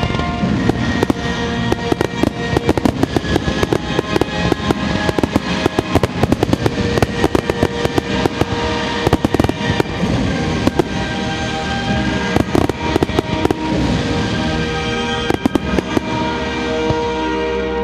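Aerial firework shells bursting in rapid succession, many sharp bangs and crackling, over music with long held notes.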